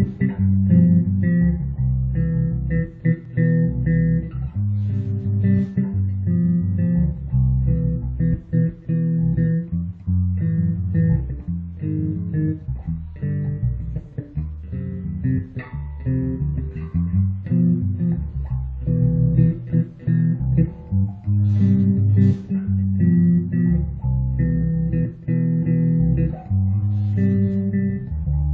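FL Custom five-string electric bass with Aero Custom H-series pickups, played as a continuous line of plucked notes that change several times a second, with short breaks between phrases.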